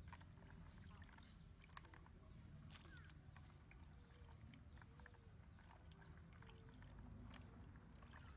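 Faint sloshing of water with scattered light clicks as hands stir and scoop soaked peanuts and black fungus in a plastic basin of water.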